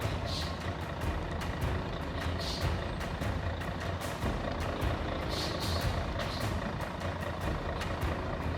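Heavy diesel truck engine running steadily at low revs, with repeated clanks and knocks from the machine throughout.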